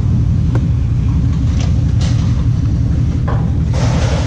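Vehicle running with a steady low rumble, with a few faint clicks and a short hiss near the end.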